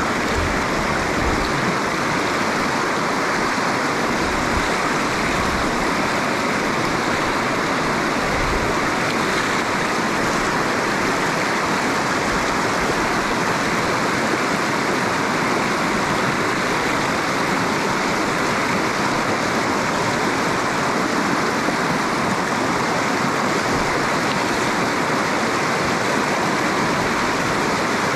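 Fast-flowing river water rushing in a steady, unbroken stream of noise, from the fast run at the head of a salmon pool.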